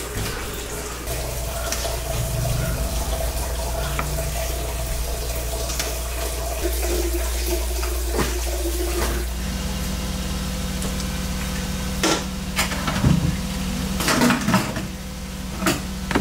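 Large aluminium stockpot steaming on its burner: a steady rushing, water-like noise over a constant low hum. A few sharp knocks and clatters of utensils near the end.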